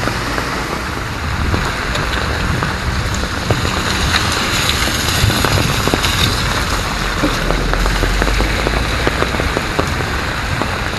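Moderate rain pattering on an umbrella held over the camera and on the wet pavement, a steady hiss with many small drop ticks. A low rumble swells for a second or so about two-thirds of the way through.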